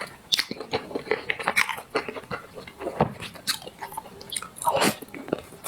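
Close-miked eating sounds: a person biting and chewing, with irregular wet mouth clicks.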